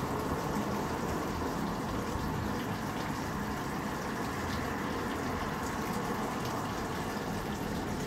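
Water running steadily from a tap in a constant stream.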